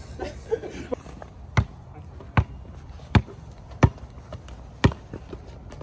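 Basketball dribbled on asphalt: five sharp bounces, a little under a second apart.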